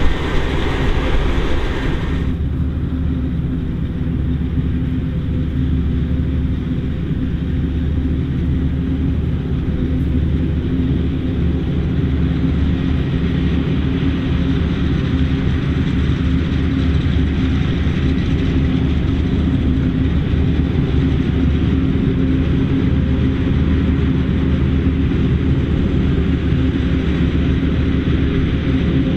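John Deere self-propelled forage harvester chopping maize under full load: a steady, heavy drone of the big engine and machinery with a low rumble. A brighter hiss in the first two seconds drops away, leaving the deeper drone.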